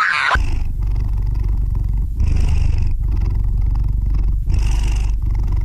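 Long-haired black cat purring loudly while being stroked on the head: a continuous low rumble that changes with each breath in and out.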